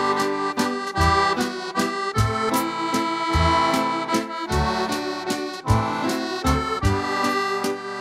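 Instrumental background music: sustained held chords over a steady, regular bass pattern.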